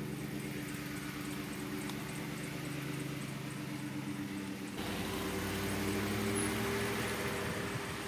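Pickup truck engine running steadily as the truck drives slowly past on a dirt track. About halfway through, a steady hiss joins the engine hum.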